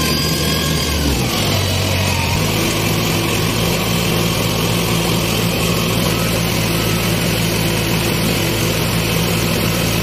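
Rice combine harvester's engine running steadily, its pitch shifting twice in the first few seconds and then holding.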